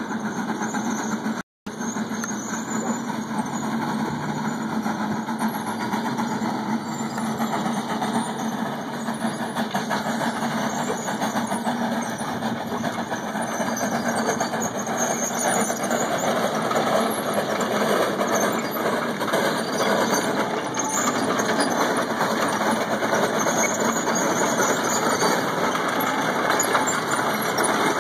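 1909 Phoenix steam log hauler running and crawling along on its tracks, a steady mechanical clatter and rush that grows gradually louder as it comes closer. The sound cuts out completely for an instant about a second and a half in.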